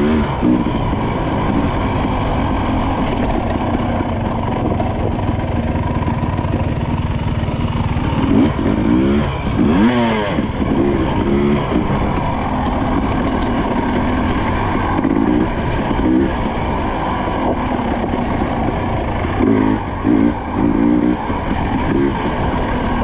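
Husqvarna TE300i two-stroke dirt bike engine running under load on a trail, the revs rising and falling with the throttle, most sharply about eight to ten seconds in.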